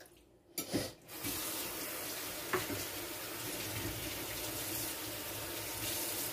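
Kitchen tap turned on about a second in, water running steadily into the sink.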